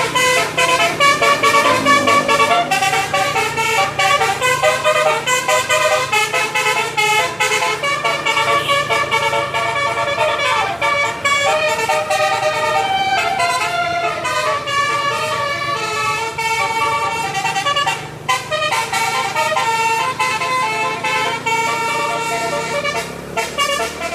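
Bus telolet horn, a 12-note basuri multi-tone horn, playing a long run of stepping notes as a tune, with a brief break about 18 seconds in. A steady low hum runs underneath.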